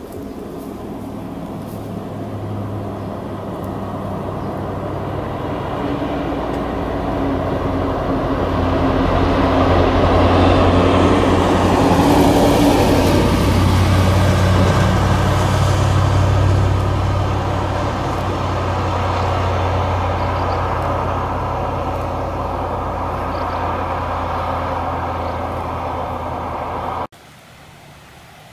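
A motor vehicle's engine runs steadily with a low hum, growing louder to a peak about halfway through and then easing off. It cuts off abruptly near the end.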